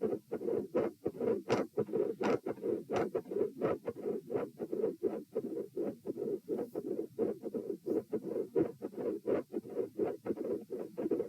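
Heartbeat heard through a stethoscope at the tricuspid (T) auscultation position, a little over one beat a second. The uploader labels it as having a midsystolic murmur and a split second heart sound. A few sharper, scratchy clicks come in the first three seconds.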